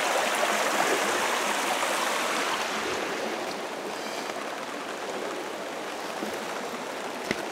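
Small rocky brook babbling and rushing over stones, growing gradually fainter over the first few seconds. A brief click near the end.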